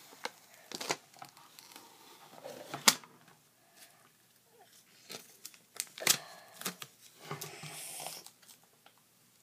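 Clear tape being cut and handled: a few sharp clicks, the loudest about three seconds in, and a short rustle near the end.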